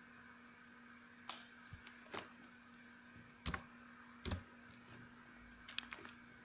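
A few short, sharp plastic clicks and taps, spread out a second or so apart, from handling a small clear plastic data-logger housing and its pinned circuit board, over a faint steady hum.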